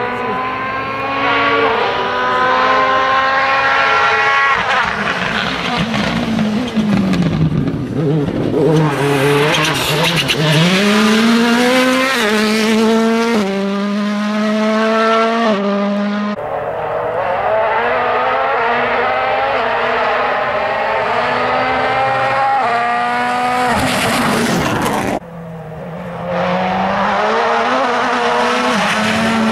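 Turbocharged four-cylinder World Rally Cars driven flat out, one after another: engines revving up through quick gear changes, falling in pitch as they brake and downshift for a corner, then climbing again. The sound breaks off abruptly twice, where one car gives way to the next.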